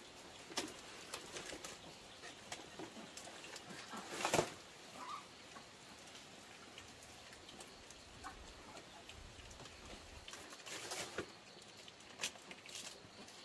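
Piglets feeding from banana leaves: irregular crackling and rustling of the leaves and chewing. The loudest rustle comes about four seconds in, with another burst around eleven seconds.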